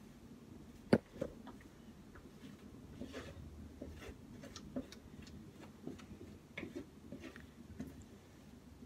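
Faint, scattered clicks and taps of a plastic mixing bowl and utensil while cake batter is poured and scraped into a glass baking dish, with one sharper knock about a second in.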